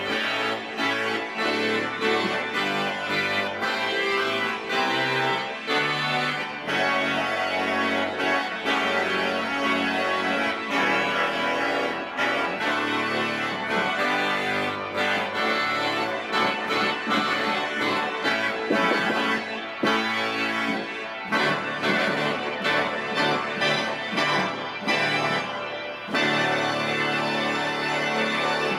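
Pipe organ playing loud with its reed stops sounding together (trumpets, wooden regal and krummhorn, French trumpet with oboe) in a quick-moving passage. The reeds are somewhat out of tune, as they have not been tuned.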